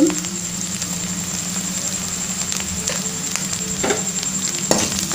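Onion, garlic and ginger paste masala sizzling steadily as it fries in mustard oil in a kadai, with a spatula stirring and clicking against the pan a few times in the second half.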